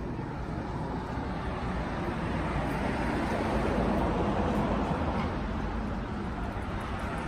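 Steady road traffic noise of a city street, a dull rumble that swells a little in the middle.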